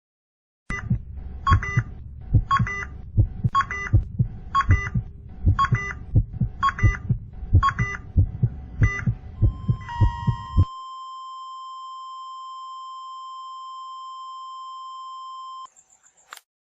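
Heart-stopping sound effect: heartbeat thumps under a heart-monitor beep about once a second. About ten seconds in the beats stop and the monitor goes to a steady flatline tone for about six seconds, which cuts off with a short click near the end.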